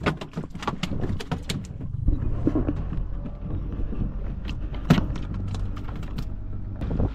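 Sharp taps and knocks on a small fishing boat's deck, coming quickly for the first second or so. A steady low hum follows, with one loud knock about five seconds in.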